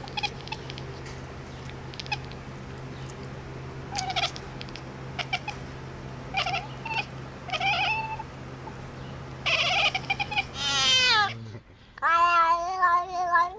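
Cat meowing: a few short meows, then louder, drawn-out wavering yowls near the end. A steady low hum runs under most of it and stops shortly before the last yowl.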